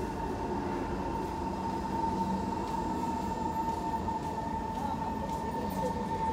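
Metro train running past behind platform screen doors, a steady rumble with a steady high whine through it.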